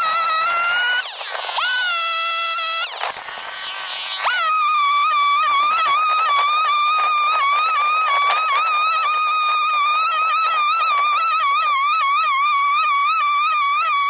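Sachs Dolmar 111 two-stroke chainsaw cutting freehand into the side of a log at high revs, a high whine that wavers as the cut loads the saw. The throttle eases off briefly about a second in and again around three to four seconds in, then the saw holds full throttle in the cut.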